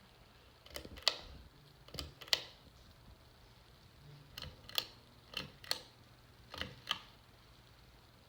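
Five pairs of sharp clicks, each pair about a third of a second apart, like a ceiling fan's pull-chain switch being pulled and let go, over a low steady hum.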